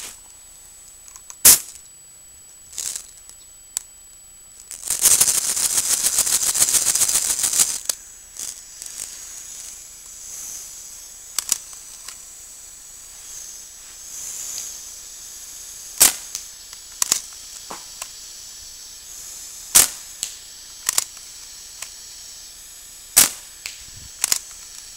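Compressed-air-fed Daisy 760 Pumpmaster BB gun firing: about nine sharp pops at irregular intervals, several of them in pairs about a second apart, the gun running off an air compressor hose at 90 PSI. From about five to eight seconds in there is a steady rushing hiss of air.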